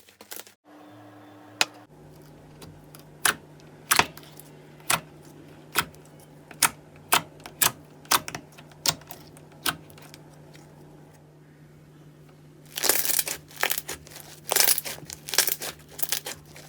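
Slime being pressed and poked, giving sharp wet pops about once a second, then a denser run of crackling near the end.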